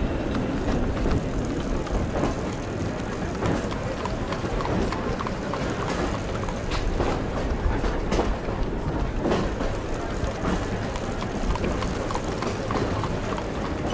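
Added street-traffic sound effects: a steady rumble of a tram running on rails, with horse hooves clip-clopping and many small knocks throughout.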